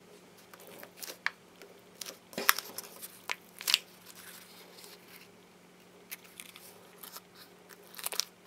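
Pleated paper cupcake liner crinkling and rustling in handling fingers, with scattered soft crackles and clicks, as a squishy toy in it is squeezed and turned.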